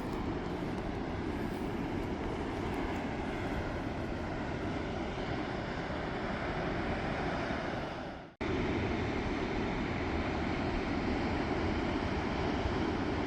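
Wind buffeting the microphone: a steady rushing noise, heaviest at low pitch. It fades and drops out for a moment about eight seconds in, then comes straight back.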